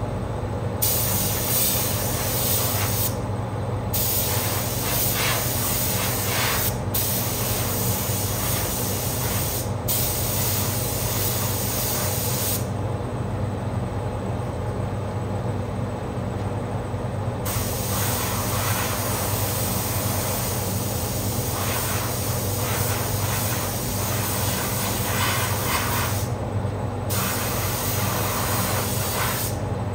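Compressed-air paint spray gun hissing in long bursts, with several short breaks and one pause of about five seconds near the middle. A paint booth's exhaust fan drones steadily underneath.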